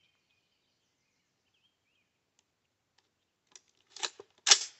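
Diamondback DB15 AR-15 rifle being loaded at the bench: after a few quiet seconds, a handful of metallic clicks, then one sharp, loud clack near the end as the action closes.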